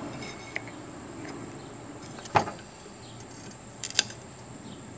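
Two sharp metal knocks about a second and a half apart, with a small tick about half a second in, as the motor of a scrapped air-conditioner compressor is tapped apart to get at its windings.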